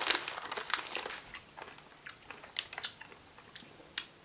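Plastic snack bag crinkling densely for about the first second, then scattered faint crackles and crunches as the crunchy coated Japanese-style peanuts are eaten, thinning out toward the end.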